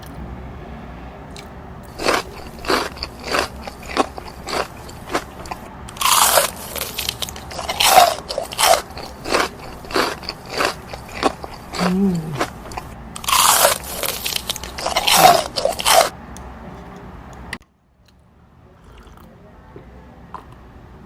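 Close-up chewing of chicken nuggets: a run of crunchy bites and chews, loudest in two denser spells about six and thirteen seconds in, stopping abruptly about seventeen seconds in.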